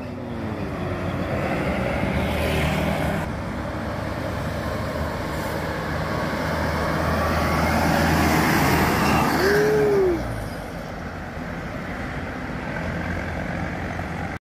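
A heavy vehicle, most likely a tour bus, passing on the road with its diesel engine running amid traffic. The sound builds to its loudest about ten seconds in and then falls away, with a short rising-and-falling tone just before the drop.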